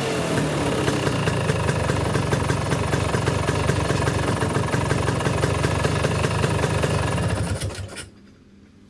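Vespa two-stroke engine with a Polini 221 cylinder kit running, its revs falling at the start and then settling to a steady idle. It cuts out near the end.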